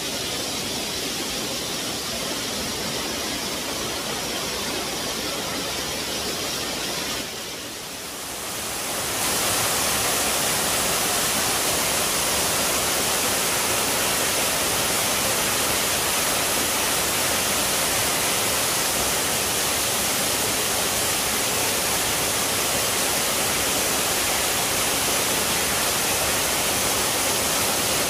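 Small jungle waterfall pouring over rocks into a shallow pool: a steady rush of water. It drops briefly about seven seconds in, then comes back louder.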